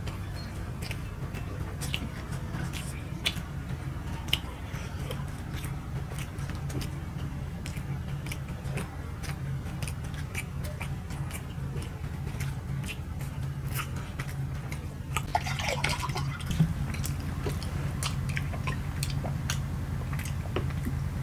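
People chewing soft steamed rice cakes, with scattered small mouth clicks and smacks over a steady low hum; a short louder mouth noise comes about three-quarters of the way through.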